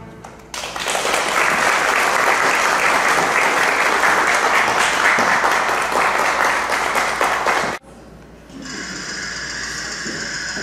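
Small audience clapping for about seven seconds, cut off abruptly; recorded music begins shortly after.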